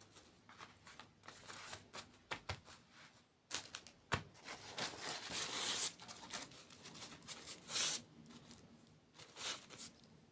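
Food packaging being crinkled and torn open in a run of irregular crackling bursts, loudest about halfway through and again near the end.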